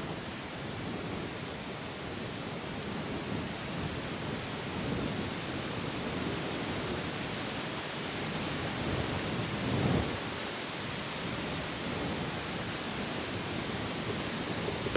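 Steady rushing outdoor noise, with a brief swell about ten seconds in.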